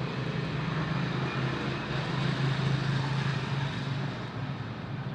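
Steady low hum with an even background hiss; no click or snap of a spark is heard.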